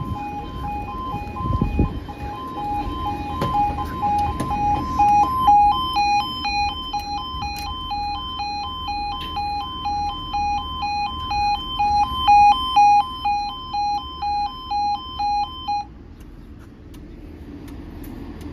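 Railway level crossing warning alarm sounding in a steady pulsing two-tone, about two to three pulses a second. A second, higher-pitched alarm joins in about five seconds in, and both cut off suddenly with about three seconds left.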